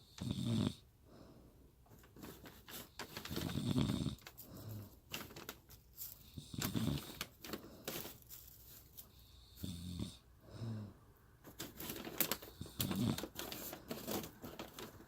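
A woman snoring in her sleep, one snore roughly every three seconds, about five in all. Short faint clicks and ticks are scattered between the snores.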